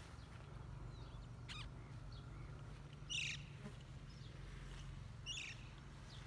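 Faint, short bird calls, a few scattered through, the clearest about three seconds in and another about five seconds in, over a steady low rumble.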